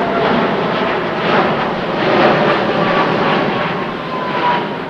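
Boeing 777-9 jet airliner flying past overhead, its twin GE9X turbofans giving a heavy rushing jet noise with a faint whine that slowly falls in pitch. The noise fades near the end.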